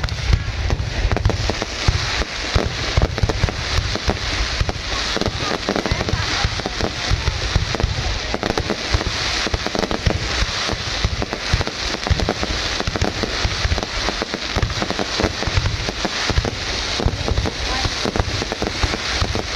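Aerial fireworks going off in a continuous barrage: many shells bursting at once, with dense crackling and bangs and no pause between them.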